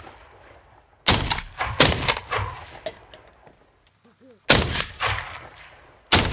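Four shotgun blasts, each trailing off in an echo: two close together about a second in, another about four and a half seconds in, and one at the very end. They are finishing shots at wounded geese swimming on the pond.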